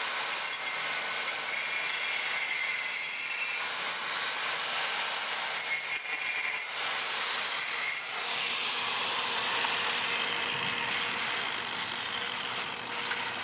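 Angle grinder with a diamond blade cutting into a spalled concrete floor joint, a steady high whine over the hum of the dust-extraction vacuum on its shroud. About eight seconds in, the grinder's whine gives way to the vacuum hose sucking loose debris out of the cut.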